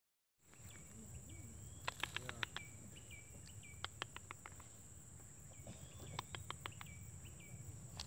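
Faint outdoor ambience: a steady high-pitched insect drone, with a bird repeating a short call that rises and then drops, roughly once a second. Clusters of sharp clicks come at about two, four and six seconds in.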